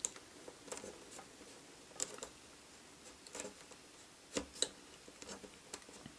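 Craft knife cutting the hard plastic ridge off the end of a pen lid: a series of light, irregular clicks and snicks as the blade bites and slips through the plastic.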